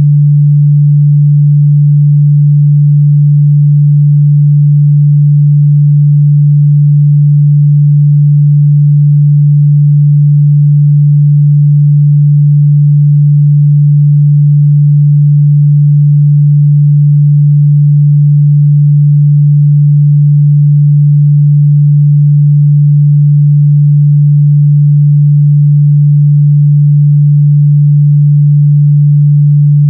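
A steady, loud 146 Hz sine-wave test tone, a pure low hum held at one pitch without a break, used to check speaker and headphone response in the mid-bass.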